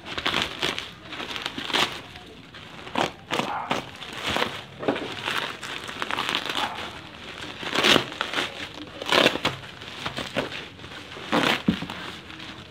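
Bubble wrap and plastic packing tape crinkling and crackling as a parcel is pulled open by hand, in irregular bursts.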